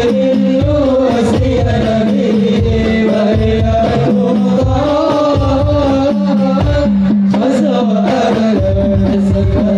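Male vocal group singing an Islamic devotional song in unison through microphones and a PA, accompanied by frame drums (rebana) beating in the low range.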